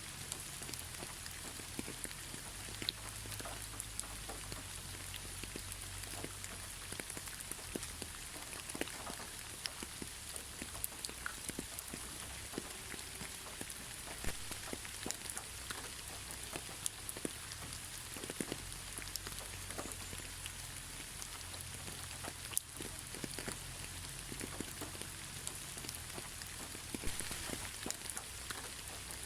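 Steady moderate rain falling without thunder, a constant hiss with scattered individual drops striking a surface.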